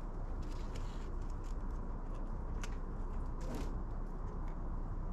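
Faint scratching and a few light clicks of fingers working in potting compost in a plastic seed tray, lifting tomato seedlings to prick them out, over a steady low background noise.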